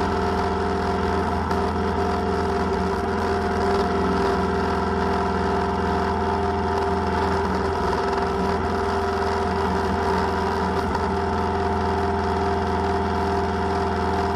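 Kubota tractor's diesel engine running at a steady speed.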